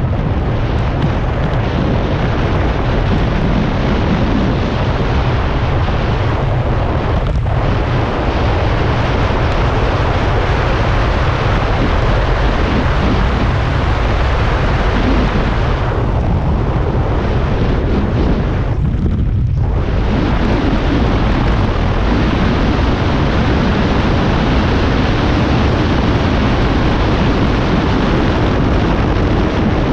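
Loud, steady wind noise buffeting the microphone of a skier's camera at racing speed, mixed with the hiss of skis running over groomed snow. The hiss thins briefly about a quarter of the way through and again for a few seconds past the middle.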